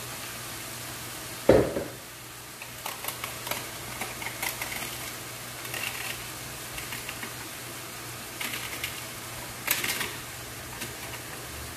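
Steady hiss of sliced mushrooms frying in a pan, with one sharp knock about a second and a half in, then scattered light clicks and taps of utensils and a seasoning shaker being handled.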